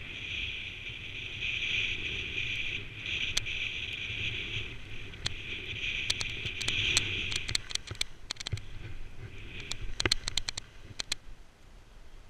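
Skis sliding over fresh snow with a steady hiss, with wind rumbling on the camera's microphone. After about seven and a half seconds the hiss fades and a run of sharp clicks and knocks follows.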